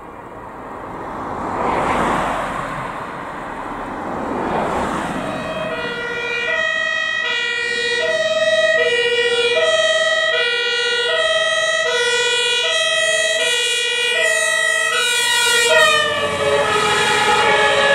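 Two-tone siren (Martinshorn) of an HLF 20 rescue fire engine, alternating high and low notes, about 0.7 s each. It grows louder as the engine approaches, and its pitch drops as it passes, about 16 seconds in. Before the siren is heard, the road noise of two vehicles passing swells and fades in turn.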